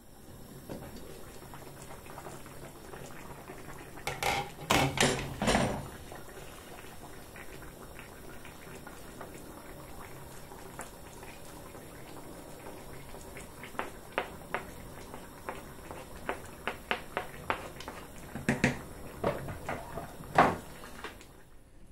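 A pot of fish pepper soup boiling on a gas hob, giving a steady bubbling hiss. A wooden spoon knocks and scrapes against the pot and chopping board: a cluster of louder knocks about four to six seconds in, then a run of light taps and clicks from about fourteen seconds to near the end.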